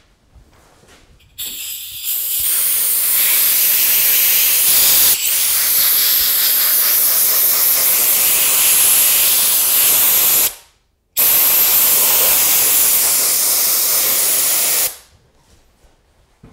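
Compressed-air blow gun hissing in two long blasts, about nine seconds and then about four seconds, with a brief break between them, as the air is blown over a wood duck mount's crown feathers to realign them.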